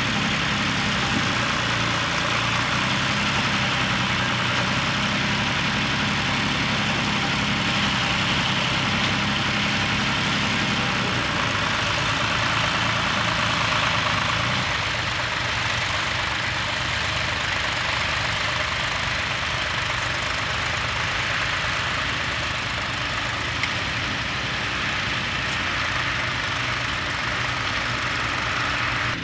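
A John Deere tractor's engine running steadily under load as it pulls a mounted plow through the soil.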